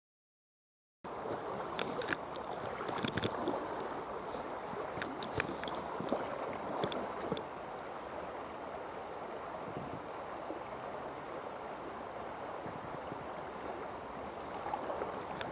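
Silence for about a second, then the steady rushing of a shallow river's current, with a few sharp clicks over the next few seconds.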